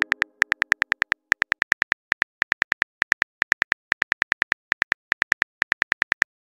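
Phone keyboard typing clicks as a text message is typed: a rapid run of short, slightly pitched clicks, about six a second, in short runs with brief gaps.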